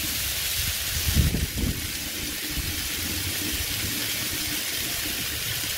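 Beef burger patties sizzling on a Blackstone propane flat-top griddle: a steady frying hiss, with a low rumble about a second in.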